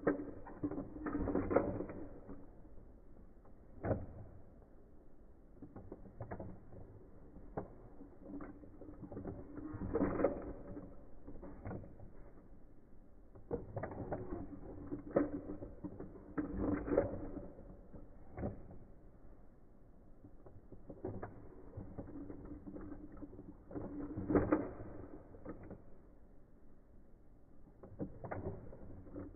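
Plastic Akedo battle controllers being worked by hand: sharp button clicks scattered throughout, with several louder clattering bursts as the figures' plastic arms swing and knock against each other.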